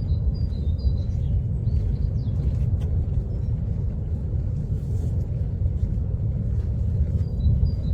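Kilauea's South Vent lava fountain giving a deep, steady rumble. Short, high repeated chirps sound over it in the first second and again near the end.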